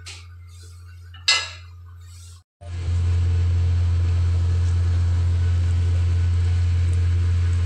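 Pot of chicken soup bubbling over a low steady hum, with small ticks and one sharp clink about a second in. After a brief dropout about two and a half seconds in, a louder steady hum and rushing noise take over while the pot steams.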